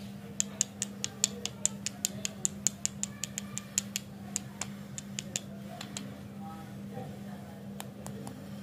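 Quick, sharp clicks and taps from fingers handling the candy lollipops, about five a second for some five seconds, then a few scattered ones, over a steady low hum.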